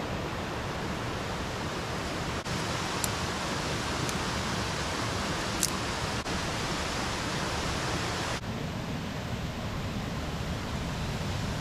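A steady, even rushing noise with a few faint ticks, broken by brief dropouts.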